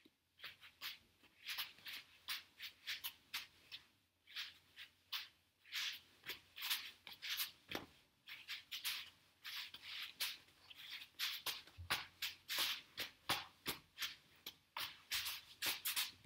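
Quick rustling swishes of a dancer's arm and sleeve whipping through the air and brushing against her costume, several a second in an uneven stream, with an occasional soft knock.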